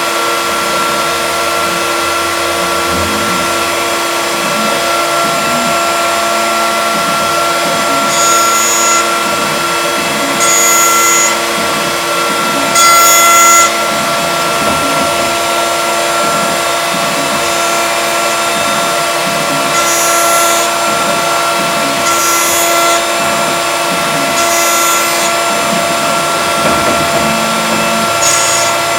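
CNC milling machine spindle running with a steady whine while cutting. Short, louder hissing bursts come every few seconds as the cutter bites into the workpiece.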